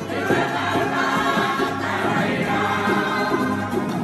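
A group singing together, accompanied by a string band of strummed ukuleles and acoustic guitars.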